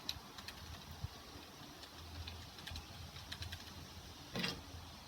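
Light clicks and taps of metal parts being handled while a grinding disc and its lock nut are fitted onto a cordless angle grinder's spindle, with one louder short scuff about four and a half seconds in.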